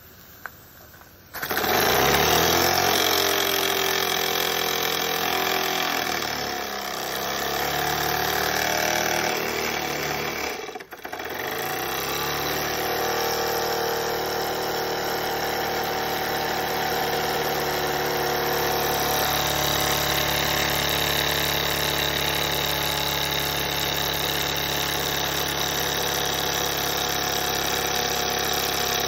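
Jensen 25GR model steam engine running. It starts abruptly about a second in and climbs in pitch over the next few seconds as it speeds up. It cuts out briefly once near the middle, then runs steadily.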